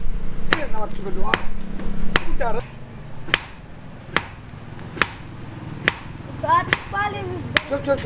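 A hand hammer strikes a red-hot bearing-steel blade blank on a steel anvil block, about nine single ringing blows at roughly one a second. A steady low hum runs under the first third and stops suddenly.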